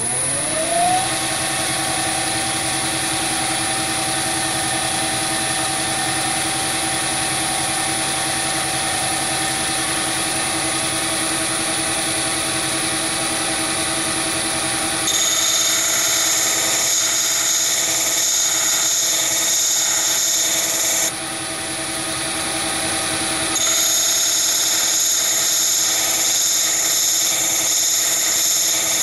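A Chinese mini lathe spins up to its fastest spindle speed, its pitch rising over the first second, then runs steadily with a whine. About halfway through, a spot drill is pressed against the diamond cup wheel on the spindle and grinds with a high-pitched sound. The grinding stops for a couple of seconds and starts again for the last few seconds.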